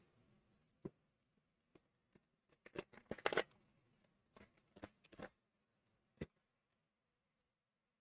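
Cardboard mailer box being handled and opened: scattered light knocks and short scraping, tearing rustles of cardboard, loudest about three seconds in.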